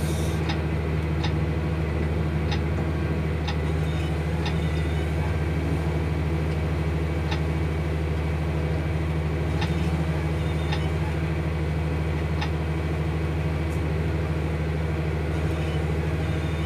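Massey Ferguson MF 7725 Dyna-6 tractor engine heard from inside the cab, running steadily while the tractor moves slowly, with a few light clicks now and then.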